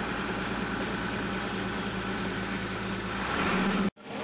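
Truck engine running, heard from inside the cab: a steady drone that grows louder and a little higher near the end as the truck pulls away. The sound then cuts off abruptly.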